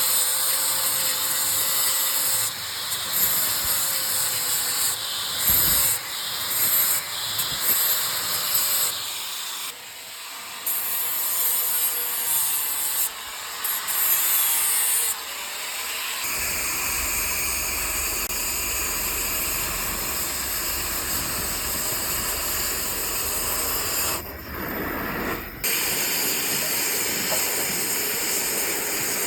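Steady hissing of hot work on a steel excavator arm (welding or torch cutting), in short stretches joined by abrupt cuts.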